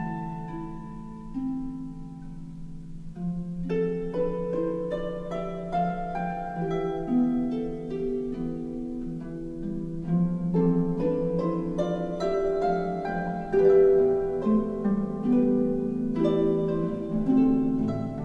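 Background music: plucked harp-like notes over sustained string tones, in a slow classical style.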